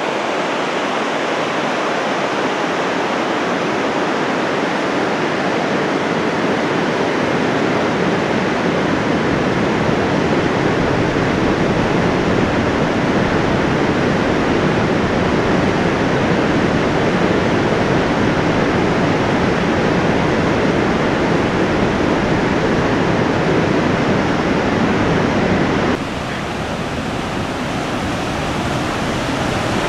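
Waterfall rushing in a steady, dense roar. About 26 s in it drops a little in level and sounds thinner.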